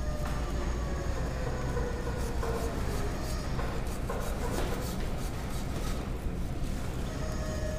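Metal rasp scraping in repeated strokes across a plaster cast, smoothing off its high spots, over a steady low hum.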